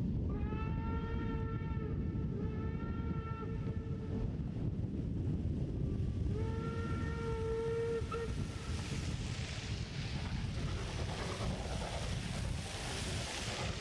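Train whistle blown twice, a long blast of about four seconds and then a shorter one of about two seconds, over a steady low rumble. From about nine seconds a hiss builds and carries on.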